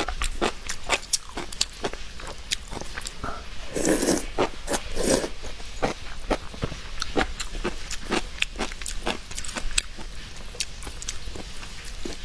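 Close-miked crunching and chewing of crisp food: a rapid, irregular run of sharp crackles and clicks, with two louder crunches about four and five seconds in.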